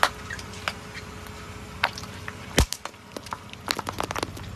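Something crunchy cracking and snapping as a car's tyre crushes it: a string of sharp, irregular cracks, the loudest about two and a half seconds in, over the steady low hum of the car.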